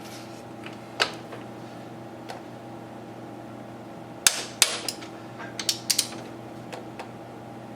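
Hand tools clicking and clinking on metal while bolts are being torqued, a few single clicks and two quick clusters about four and six seconds in, over a steady hum.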